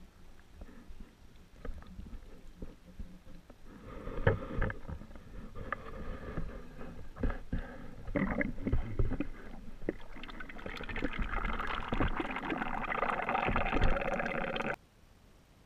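Muffled underwater sound picked up through a submerged camera's housing: low rumbling and scattered knocks, building into a louder rushing noise that cuts off suddenly near the end.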